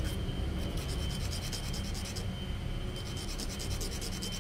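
End of a small wooden dowel rubbed back and forth on a sheet of sandpaper, sanding it down because it is too tight for its hole. The strokes come in quick, even runs, broken by short pauses just after the start and again about two seconds in.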